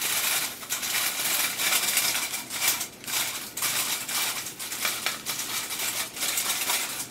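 Metal squeeze-handle flour sifter being worked, its agitator rasping against the mesh in quick repeated strokes, about two or three a second, as seasoning sifts through.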